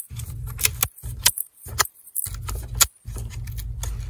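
Sharp irregular clicks and snaps as a metal pry tool works around a laptop's plastic screen bezel, its clips popping loose, over a low hum.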